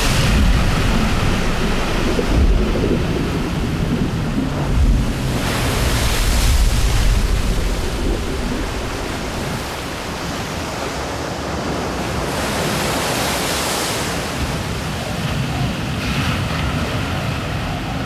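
Heavy rushing water, with a deep rumble underneath, that swells and eases in surges every few seconds.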